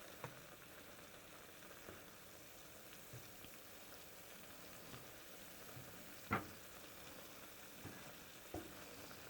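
Longganisa sausages boiling in water in a pan: a faint steady bubbling hiss with scattered small pops, and one sharper click about six seconds in.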